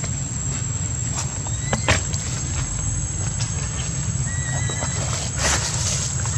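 Outdoor ambience: a steady low rumble under a constant high-pitched whine, with a few short rising chirps a little past the middle and scattered light clicks. There is a brief rustle about five and a half seconds in.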